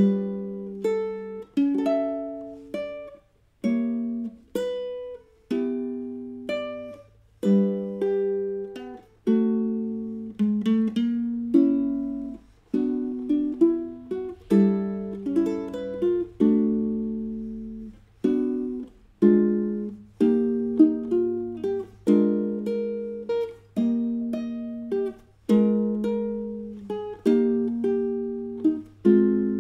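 Solo ukulele played fingerstyle: a jazz chord-melody arrangement of plucked chords and single melody notes, each ringing and fading, with a short pause about three and a half seconds in.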